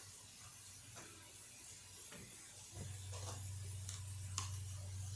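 Quiet kitchen sounds as hamburger patties go into a frying pan: a few light clicks and taps over a faint hiss, with a low steady hum coming up about three seconds in.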